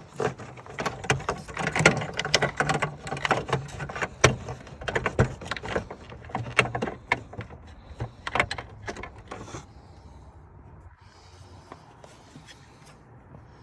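Rapid plastic clicks, knocks and scrapes of an LED angel eye bulb and its wiring being pushed and twisted into a car headlight housing by hand, busy for about nine seconds and then dying down, over a faint steady low hum.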